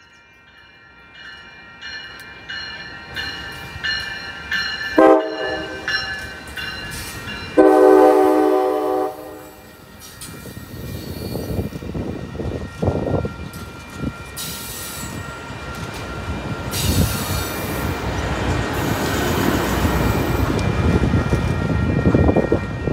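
A train horn sounds a short blast and then a longer, louder one, and the train passes, its rumble building steadily with repeated bursts of high-pitched wheel noise.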